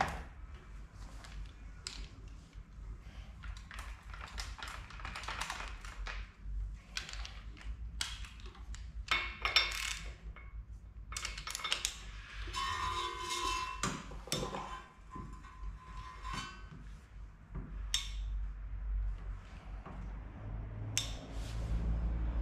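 Hand tools clicking, tapping and clinking against a bare engine block and its crank bolt as the crank is turned by hand, with a short ringing metal ping a little past halfway.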